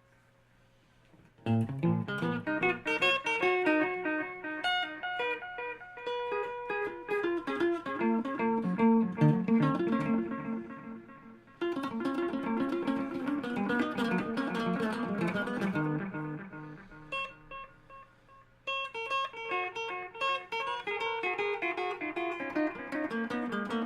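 Electric guitar played through a Caline Ghost Rain reverb/delay pedal: picked single notes and chords. The playing starts about a second and a half in, and twice lets the notes ring and fade before starting again.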